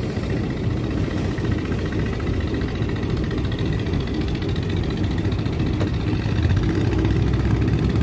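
A fishing boat's inboard engine running steadily under way, heard from on deck as a low, even engine sound.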